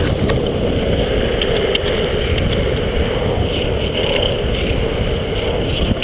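Longboard wheels rolling on a paved cart path: a steady rumbling roar with scattered sharp clicks.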